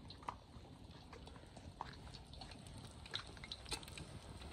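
Sel roti batter frying in hot oil in a wok over a wood fire: faint, irregular crackling and popping, a few small pops a second over a low hiss.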